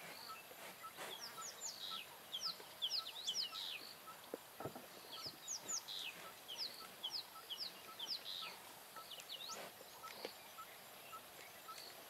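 Wild birds calling: clusters of short, high chirps that sweep up and down in pitch come and go in bursts. Beneath them a soft, even note repeats about one and a half times a second, with a couple of faint knocks.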